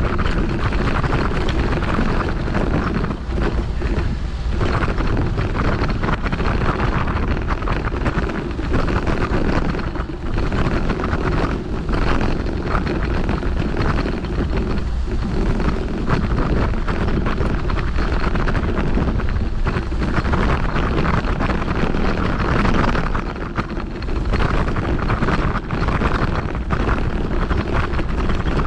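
Wind buffeting the camera microphone: a loud, steady rushing noise, heaviest in the low end, that swells and dips slightly.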